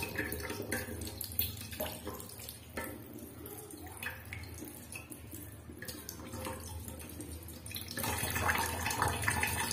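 Kitchen tap water running onto a cloth bundle of fresh chhena held under the faucet and splashing into a steel bowl in a stainless-steel sink, as the curd is rinsed. Irregular splashes as the bundle is handled, louder about eight seconds in.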